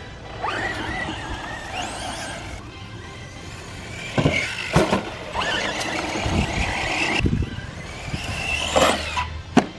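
Electric motor of a VKAR Racing SCTX10 V2 RC short course truck whining as the truck accelerates, its pitch rising. About four and five seconds in come two sharp thumps as it goes over the plywood ramp and lands, then the motor whines steadily again.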